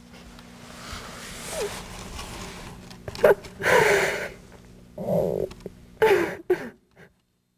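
Person sobbing: breathy, ragged crying broken by several short wails that fall in pitch, stopping abruptly about seven seconds in.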